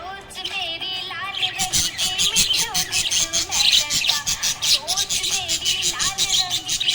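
Budgerigar chirping and warbling in a rapid, continuous chatter of short high chirps and wavering notes.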